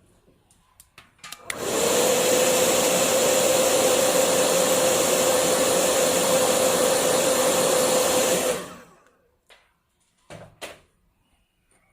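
Hair dryer switched on after a couple of clicks, blowing steadily with a steady hum for about seven seconds to dry the wet ink and colour of a Chinese painting, then switched off. Two light knocks follow near the end.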